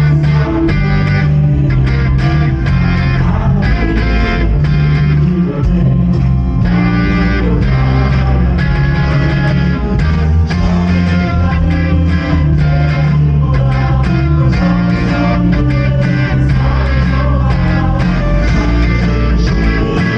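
Live worship band playing a praise song with electric guitar, bass guitar and drums, with some singing.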